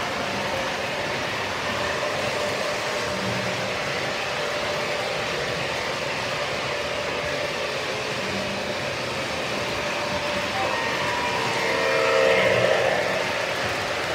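O-scale model trains running on the layout's track: a steady rumble of wheels on rail with the hum of the electric motors. It grows louder near the end as cars pass close by.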